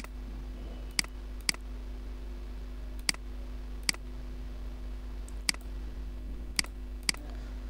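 Computer mouse button clicking about eight times at irregular spacing, often in close pairs, over a steady low hum.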